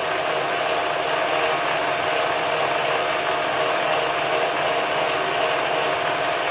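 A pedestal drill running a 1-inch annular cutter at 150 rpm under power feed, cutting steadily through 5/8-inch A-36 steel plate. It makes a continuous cutting noise with one constant tone running through it.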